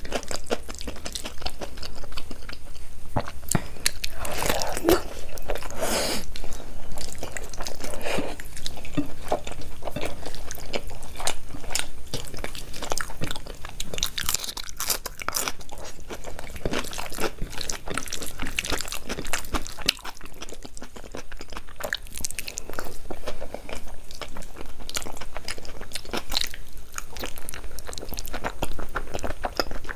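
A person chewing and biting food close to the microphone, with frequent crunches and small mouth clicks.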